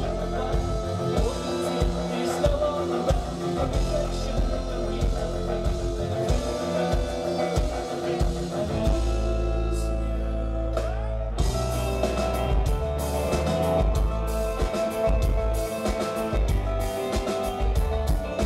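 Live pop-rock band playing through a PA with electric guitars, bass, bowed cello and drums. About halfway through the drums drop out for a couple of seconds over a held low note, then the full band comes back in.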